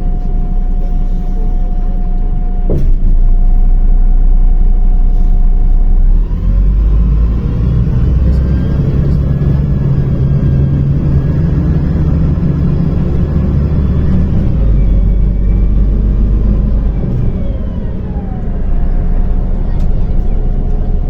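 Inside a MAZ-105 city bus: the diesel engine rises in pitch as the bus pulls away and speeds up, runs steady, then falls away as it slows. A steady whine is heard before and after, with a single knock early on.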